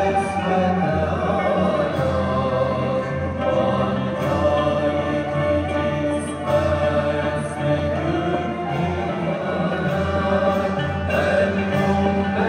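Mevlevi sema music: a chorus of voices singing together with the ceremonial instrumental ensemble, accompanying the whirling dance.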